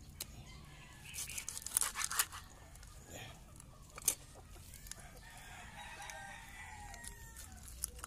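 Knife scraping and tapping on a fish against a wooden board as it is scaled and gutted: a quick run of strokes about a second in and a single sharp knock around four seconds in. A rooster crows faintly in the background for a couple of seconds after the midpoint.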